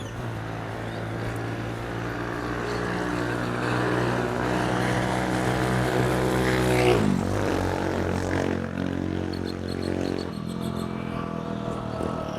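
An engine with a steady droning hum grows louder, passes close about seven seconds in with a sudden drop in pitch, and then fades away.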